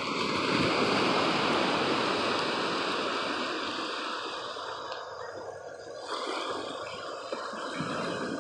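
Small waves of surf washing onto a sandy beach, a steady hiss that swells about a second in, eases off and builds again near the end.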